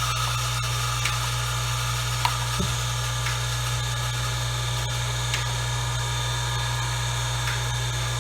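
Steady low hum with a hiss above it, and a few faint light clicks.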